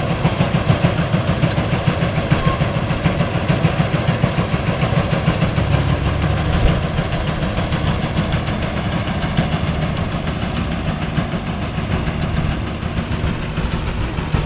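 Massey Harris 735 combine harvester's engine running steadily with a fast, even low beat.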